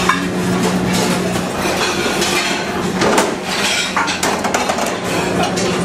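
Busy restaurant kitchen line: plates, metal pans and utensils clattering and clinking in quick, irregular knocks over a steady low hum.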